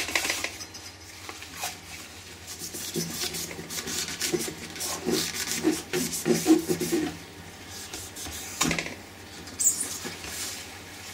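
Cloth rubbing the chrome trim rings of a Fiat 128 instrument-panel bezel in quick repeated strokes, cleaning off rust with contact spray, as the plastic frame is handled. A single sharp knock comes late on.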